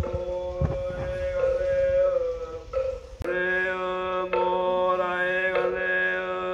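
Chant music with long held notes; about three seconds in, a new phrase begins over a low steady drone.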